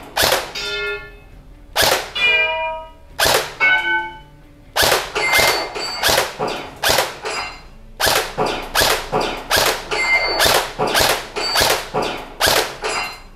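Airsoft rifle firing a string of single shots, slowly at first and then a few shots a second from about five seconds in. Some shots are followed by a short metallic ringing.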